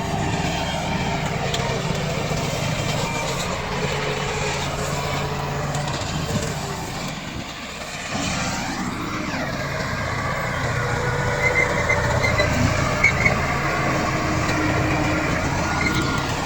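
Komatsu D68 bulldozer's diesel engine running steadily while working. It dips briefly about seven seconds in, then picks up again, and a few short high squeaks come near the middle.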